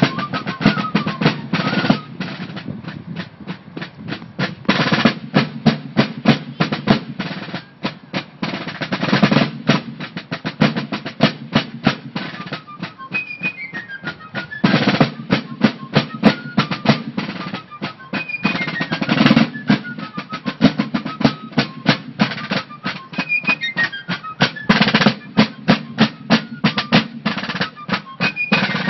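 Fife and drum corps playing a march. Snare drums keep up rapid strokes and rolls, and a high fife melody runs over them in short phrases that step downward.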